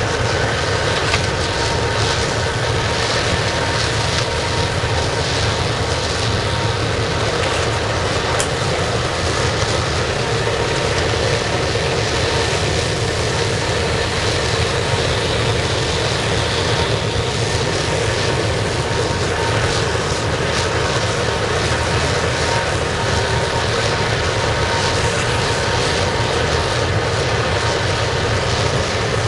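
Air-atomised waste-oil burner firing a scrap-melting furnace: a loud, steady rushing noise of flame and air that does not change.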